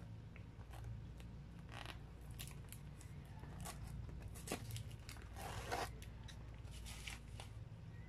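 Small plastic condiment sachets being peeled and pulled off a cardboard pizza box lid: a series of short tearing and crinkling rasps, the longest about five and a half seconds in.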